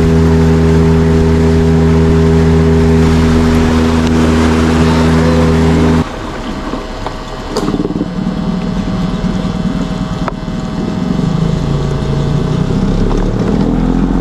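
Boat motor running steadily at cruising speed. About six seconds in the steady drone breaks off suddenly, and a lower, uneven engine sound follows.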